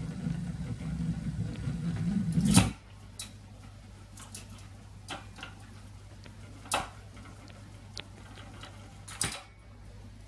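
Blaupunkt Arkansas radiogram's record player at the end of a record: the stylus rumbles in the run-out groove until a loud click about two and a half seconds in as the tonearm lifts. The changer mechanism then clicks several times while the arm swings back to its rest, over a steady low hum from the set.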